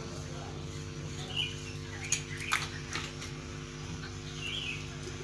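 Two short bird chirps over a steady low hum, with a few sharp clicks between them.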